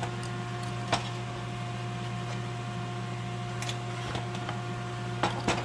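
Harbor Freight Vulcan Commander 225 AC/DC transformer arc welder humming steadily while switched on but not striking an arc. A few light ticks and scratches over it, from soapstone marking a line on the steel.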